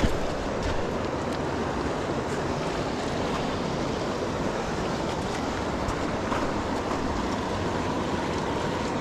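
Fast-flowing river water rushing steadily over rocks, with a single brief knock at the very start.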